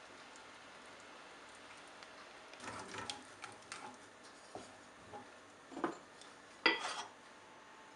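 Simmering gravy hissing faintly in a pan, then a wooden spatula stirring it, scraping and knocking against the pan from about two and a half seconds in, the sharpest knock near the end.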